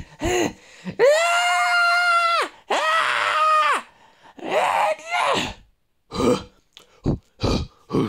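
A human voice doing made-up Homo ergaster calls: a short grunt, then two long held high cries, a call that rises and falls, and a few short grunts near the end.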